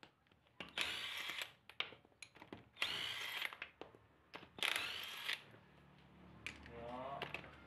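Impact wrench hammering on a car wheel's lug nuts in three bursts of about a second each, loosening them to take the wheel off. Near the end the tool's motor spins up with a short rising whine.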